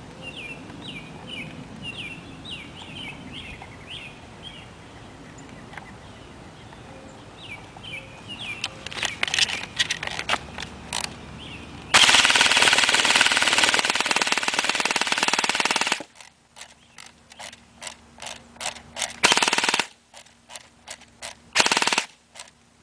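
SRC all-metal airsoft M4 electric gun, powered straight from a motor-scooter battery with its fuse removed, firing BBs on full auto. Scattered single shots come first, then one unbroken burst of about four seconds, the loudest part. More single shots and two short bursts follow.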